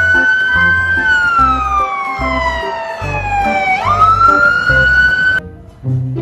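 Fire engine siren wailing: the tone holds, slides slowly down for about three seconds, then rises quickly, holds again and cuts off suddenly near the end. Background music with a steady beat plays underneath.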